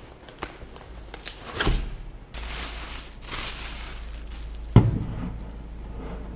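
Hands handling PC build hardware: scattered light clicks, rustling and scraping, and a sharp knock about five seconds in, the loudest sound.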